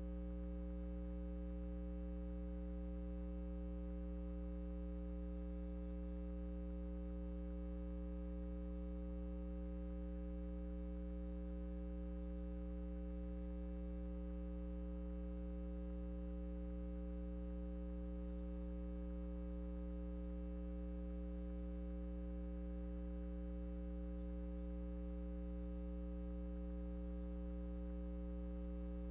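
Steady electrical mains hum in the audio feed, a low buzz with a stack of overtones and a faint rapid flutter in its lower part.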